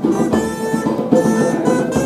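Live band music: a folk tune played on guitar with drums.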